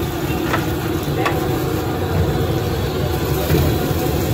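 Beaten egg sizzling on a large flat steel griddle while a metal spatula scrapes and taps across the hot plate, with two sharp scrapes in the first second and a half. A steady low rumble runs underneath.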